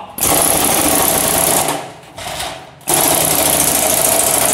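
Chicago Pneumatic CP717 air hammer driving a chisel through the sheet-metal bottom of a garbage can: rapid, loud hammering in two long bursts with a short one between them.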